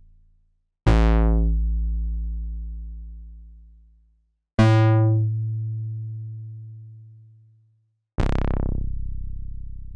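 Korg EX-800 analog synthesizer playing three separate deep bass hits, each striking sharply and dying away over about three seconds, a fresh one starting roughly every three and a half seconds; each begins bright and quickly mellows to a low rumble.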